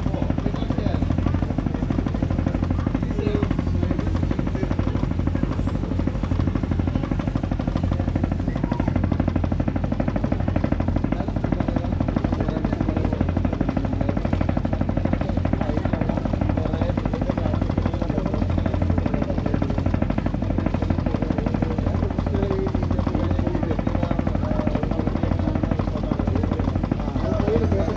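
Boat engine running steadily under way, a continuous low throb.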